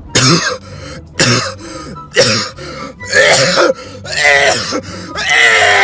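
A person coughing and clearing their throat hard: three sharp coughs about a second apart, then longer, rasping, voiced coughs. This is the reaction to the burn of ghost pepper popcorn hitting the throat.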